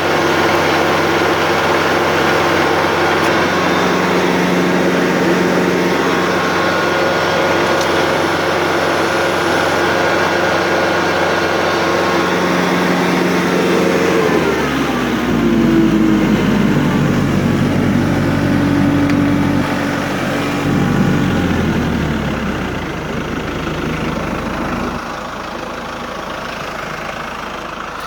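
Tractor engine running hard to drive a Woods TSG50 PTO stump grinder. About halfway through the engine note drops sharply and stays lower, and the sound quietens a few seconds before the end.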